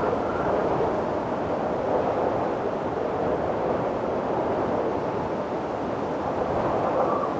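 Steady rushing wind, a continuous mid-pitched roar without gusts or breaks, with a faint thin whistle coming in near the end.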